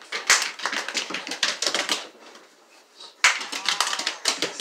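Rapid, irregular clicking and tapping of a dog's claws scrabbling on a hard floor as it runs flat out, in two flurries with a quieter gap a little past the middle.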